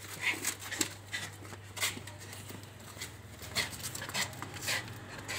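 A gazelle struggling while men hold it down, making irregular clicks, knocks and scuffs, over a steady low hum.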